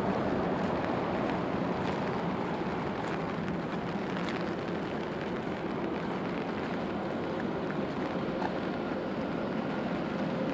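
Steady traffic noise on a wet city street in the rain: a continuous hiss of vehicles running over wet pavement, with scattered light ticks. A faint steady hum joins about two-thirds of the way through.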